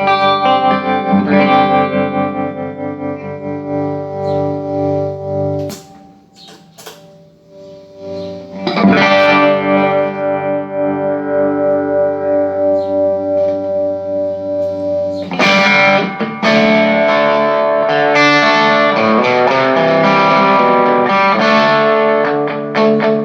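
Electric guitar played through a Vox AC15 C1 valve combo amplifier with light crunch, tested after servicing. Chords ring and fade out, a few muted string clicks come about six seconds in, a new chord rings from about nine seconds, and from about fifteen seconds quicker picked notes follow.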